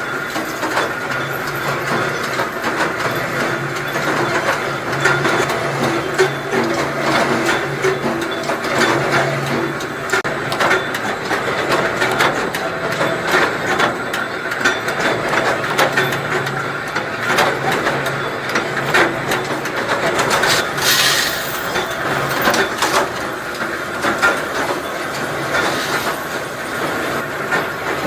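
Ammunition production machinery running: a continuous mechanical clatter of many small clicks over a steady hum. A short hiss of air comes about three-quarters of the way through.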